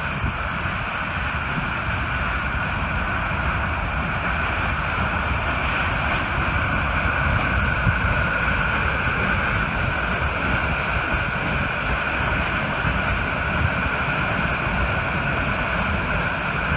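Water jetting under pressure from the Button Rock Dam outlet and crashing into the St. Vrain River: a steady, loud rush of white water.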